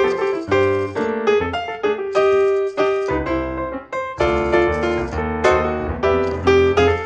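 Background piano music: a run of quick notes over low bass notes.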